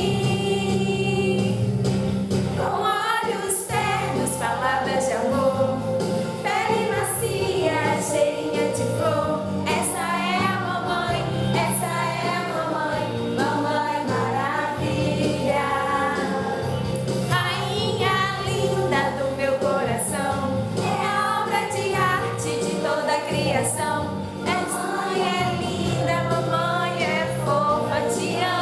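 Music: a song sung by several voices over a steady bass line, with light rhythmic ticks on top.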